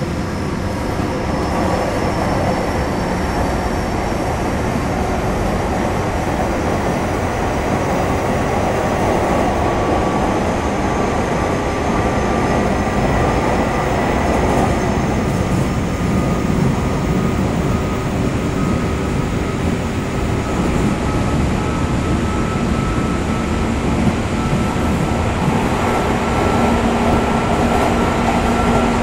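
JR East 201 series electric train with armature chopper control running along the track: steady wheel and rail rumble under a motor whine whose thin tones slowly climb in pitch as the train gains speed.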